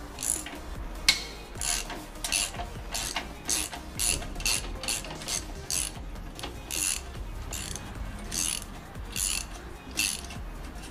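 Ratchet wrench clicking in short repeated strokes, about two a second with brief pauses, as the 13 mm nut on the exhaust clamp is undone.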